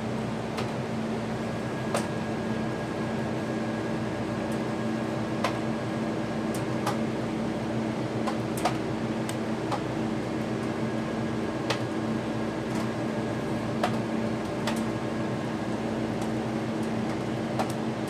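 A steady machine hum with a low drone, over which come scattered small clicks and taps as wire connectors are handled and pushed onto the refrigerator compressor's terminals.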